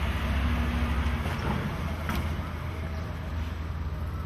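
Street ambience: a steady low rumble of traffic.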